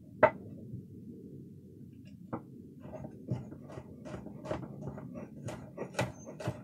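A sharp knock, then a run of small irregular clicks and taps of hands working garlic cloves at a kitchen counter.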